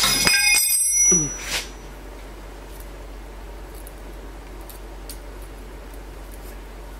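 Metal hand tools clink and ring for about a second at the start, then cut off. After that only a few faint light ticks are heard while a feeler gauge is worked between a rocker arm and valve stem on the tractor's diesel, checking the valve lash.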